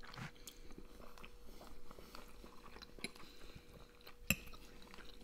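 Quiet chewing of funchoza glass noodles with small clicks of metal forks against a glass plate; one sharper click about four seconds in.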